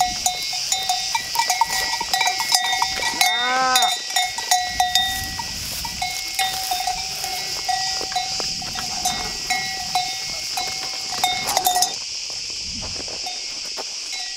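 Bells on feeding sheep or goats clinking again and again as the animals move, with one animal bleating about three and a half seconds in. A steady high buzz of insects runs underneath. The bells stop about twelve seconds in.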